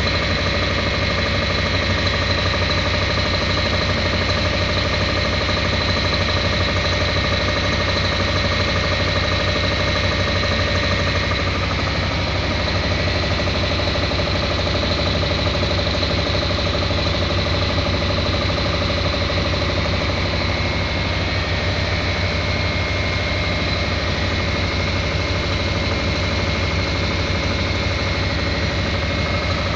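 HCCI (homogeneous charge compression ignition) engine running steadily on raw biomass-gasifier producer gas: a fast, even pulsing with steady high whining tones over it.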